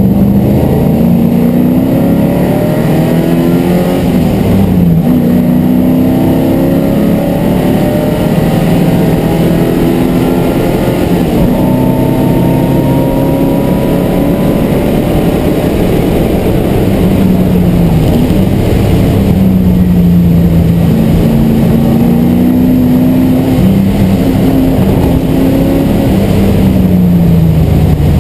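MGB GT V8's Rover V8 engine under racing load, heard from inside the cabin: the note climbs as the car accelerates, then drops back at gear changes or lifts, several times over.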